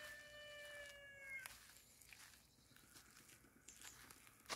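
The end of a rooster's crow: a long held note that falls slightly and cuts off about a second and a half in. Faint footsteps on damp garden soil follow.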